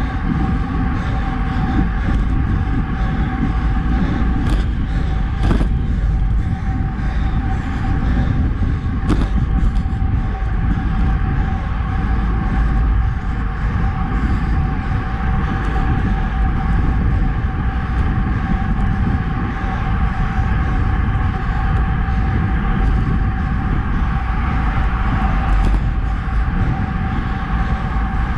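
Wind rushing over a handlebar-mounted action camera, with tyre noise from a road bike rolling on Roval Rapide CLX64 deep-section carbon wheels. A steady high hum runs underneath, with a few faint ticks.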